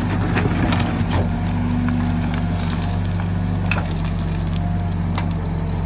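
Case 770 backhoe loader's diesel engine running steadily under digging load as the backhoe bucket works into stony soil, with scattered short clicks and scrapes.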